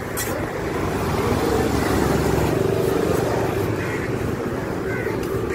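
An engine running with a low hum, swelling louder over the first two seconds and then easing off a little.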